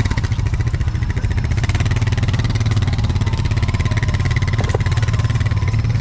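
Can-Am off-road vehicle's engine running steadily and loudly, with no change in pace.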